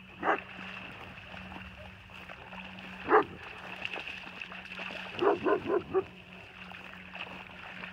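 A dog barking: a single bark, another about three seconds in, then a quick run of four barks about five seconds in.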